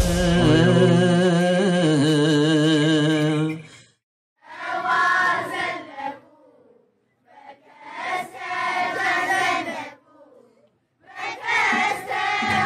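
A children's choir sings an Ethiopian Orthodox hymn together. It opens with a long held note with a wavering pitch, then moves into three short phrases with brief pauses between them.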